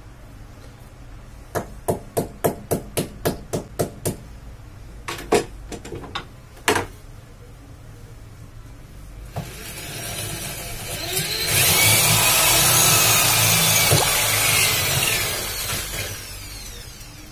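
About ten sharp taps on the wall, roughly four a second, then a few more; from about ten seconds in, a corded electric drill spins up and bores into the wall, running loud for about four seconds before winding down near the end.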